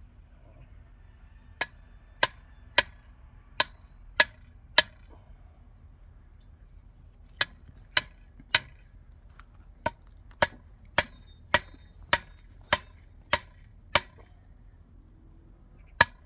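Hammering: sharp strikes with a slight ring, about one every 0.6 seconds. They come in two runs with a pause of a couple of seconds between them.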